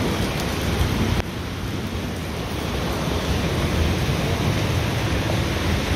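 Heavy rain pouring steadily. About a second in it cuts abruptly to a duller, slightly quieter rush of rain.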